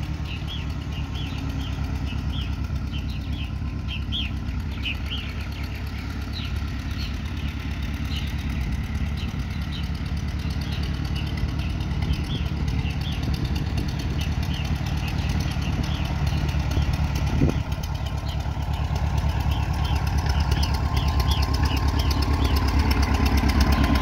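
1957 Case 300 tractor engine running steadily as the tractor is driven, growing louder as it comes close near the end. Purple martins chirp over it in the first few seconds and again near the end.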